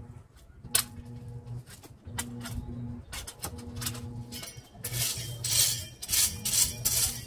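Gravel stones clinking and scraping under metal garden tools: scattered sharp clinks at first, then from about five seconds in repeated scraping strokes of a long-handled tool dragged through the gravel. A dove coos intermittently in the background.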